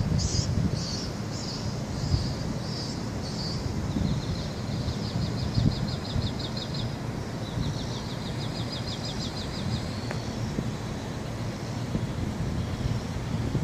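Wind buffeting the microphone, with a small bird chirping above it: short chirps about twice a second, then two rapid trills of quick even notes.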